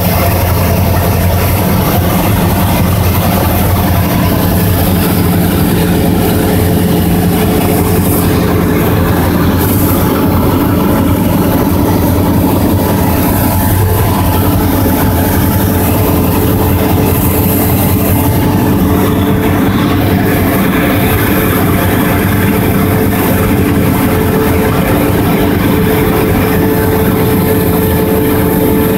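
Cessna 172's single piston engine and propeller running steadily, heard from inside the cockpit.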